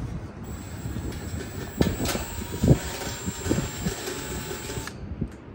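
Milwaukee cordless impact driver with a long bit extension driving screws to fasten a sheet-metal access panel back onto a rooftop HVAC unit. It gives a steady whine with a few sharp knocks and stops abruptly near the end.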